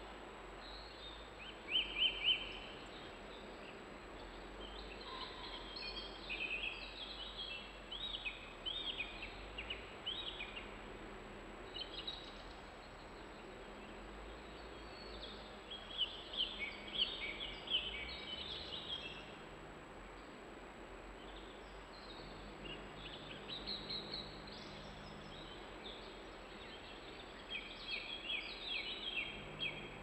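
European robin singing: phrases of high, thin warbling notes a few seconds long, separated by pauses of a few seconds, over a steady background hiss.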